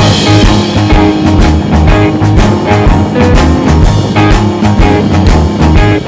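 Background rock music with a steady beat.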